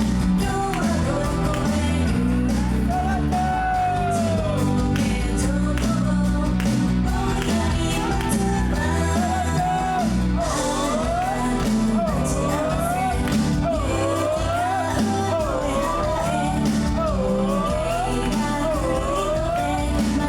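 Live pop-rock music played loud in a concert hall, with a woman singing the lead; about halfway through the melody turns into a run of repeated short rising phrases.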